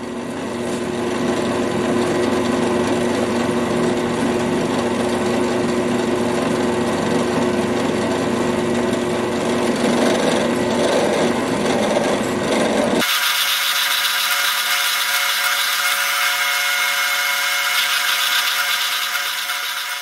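Drill press running, its twist drill boring tap-drill holes for 8-32 screws into metal bar stock, with a steady running noise and a low hum. About two-thirds of the way through, the sound changes abruptly to a thinner, higher whine with several steady tones.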